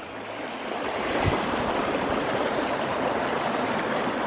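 A stream running, a steady wash of flowing water that builds over the first second and then holds even.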